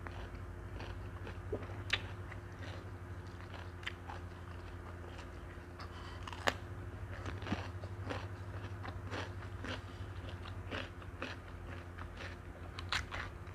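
Close-miked eating: crisp bites and chewing of raw cucumber and salad, with short crunches and crackles throughout, the sharpest crunch a little after six seconds in. A steady low hum runs underneath.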